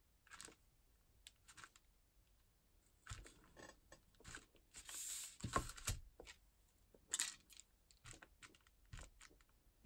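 Faint rustling of thin rice paper as it is handled and pressed under a clear acrylic stamp block, broken by a few soft knocks and clicks of the block and plastic ink pad cases.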